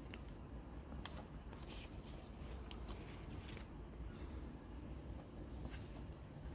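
Runner bean pods being picked by hand: faint rustling of leaves and vines with several short crisp snaps and crackles, over a low rumble.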